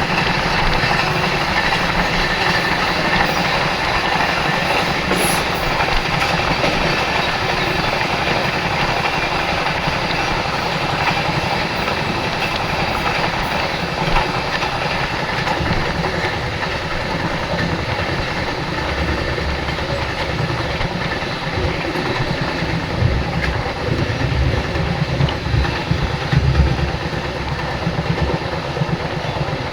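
Dakshin Express passenger train running along the track, a steady rolling noise with wheels clicking over the rails.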